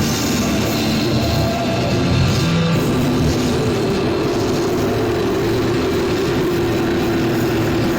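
Extreme-metal and noise demo music: a dense, steady wall of distorted sound with a held low drone.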